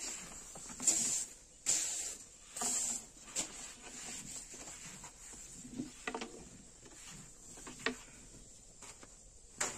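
Long thin wooden rolling pin rolling sesame flatbread dough on a floured wooden board: three swishing strokes about a second apart, then quieter scraping and a few light knocks of the pin against the board.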